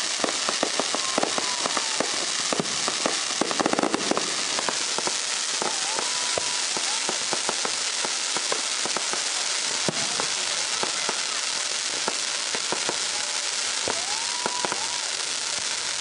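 Aerial fireworks going off in a dense, continuous crackle of many small pops, over a steady hiss.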